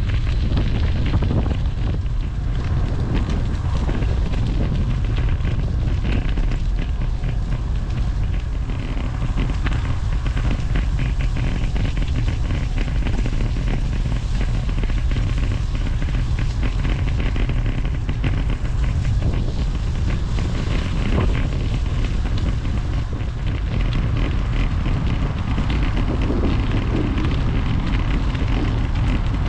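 Steady wind noise buffeting the microphone: a rough, even rumble strongest in the low end, with no break or change.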